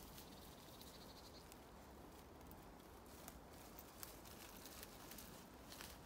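Near silence with scattered faint crackles and rustles of dry fallen leaves and twigs being trodden through.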